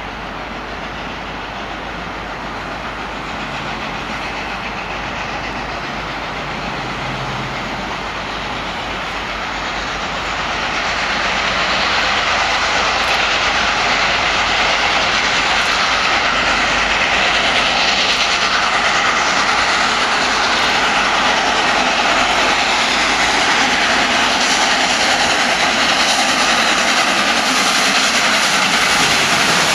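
LNER A4 Pacific steam locomotive No. 60009, a three-cylinder 4-6-2, working a train away, with a steady rush and hiss of steam. It grows louder about a third of the way in as the engine draws near.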